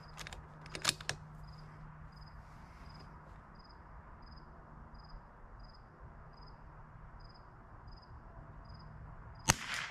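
A single shot from a .22LR Ruger Precision Rimfire, a sharp report about nine and a half seconds in with a short ring after it, fired with Norma Match ammunition at a chronographed 1,097 ft/s. A few sharp clicks come about a second in, and an insect chirps steadily about twice a second throughout.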